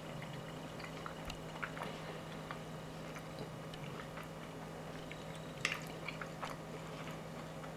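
A person chewing a mouthful of soft food, with small wet mouth clicks and a fork tapping the bowl, one sharper click about two-thirds of the way through. A steady low hum runs underneath.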